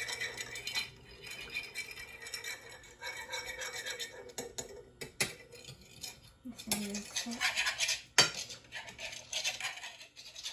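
Egg, milk, vanilla and cinnamon being beaten in a shallow dish with a utensil: quick, continuous scraping and clinking against the dish, with two sharper knocks about five and eight seconds in.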